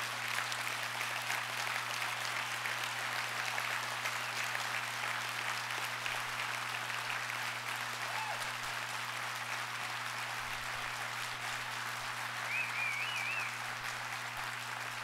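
Audience applauding steadily, the response to an applause line in a speech, with a short high call from someone in the crowd near the end. A steady low hum runs underneath.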